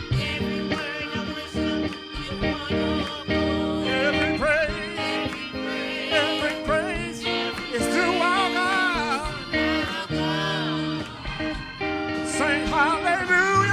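Gospel music: a voice sings wavering, sliding melodic runs over held chords from instrumental backing with guitar.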